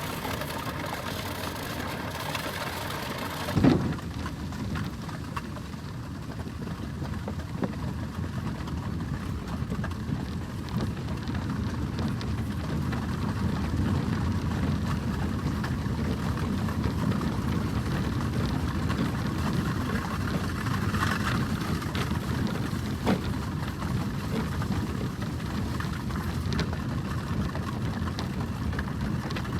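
The Norwich Union stagecoach drawn by four horses on the move: a steady rumble of the carriage and wheels, with a scatter of hoof clatter and small clicks throughout, and one sharp knock about three and a half seconds in.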